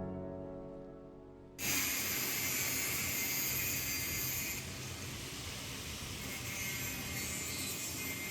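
A piano note dies away, then a steady hissing noise starts suddenly about a second and a half in and keeps going.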